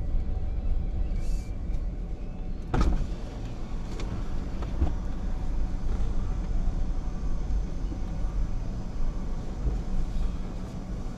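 Steady low rumble of a car's engine and running gear heard from inside the cabin as it idles and creeps forward, with one sharp knock about three seconds in.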